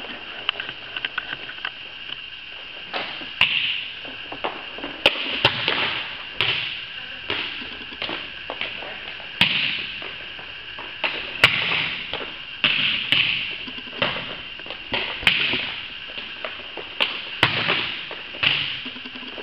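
Volleyballs being struck by hand and bouncing on a hard gym floor: a string of sharp smacks about once a second, each ringing briefly in the hall.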